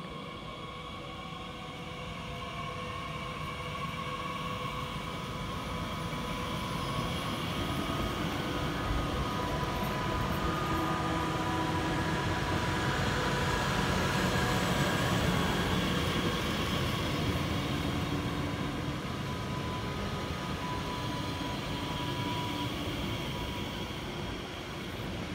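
A Bombardier Talent 2 electric regional train approaching and running past close by, growing louder until about halfway through, then staying loud. Its traction drive gives a whine of several steady tones over the rumble of wheels on rail.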